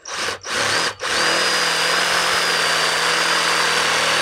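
Electric drill boring through a metal bracket: two short bursts, then a steady run from about a second in, with a high motor whine over the cutting noise.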